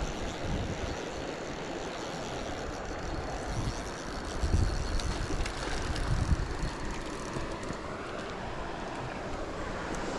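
Mountain creek water rushing steadily over rocks, with a few low thumps around the middle.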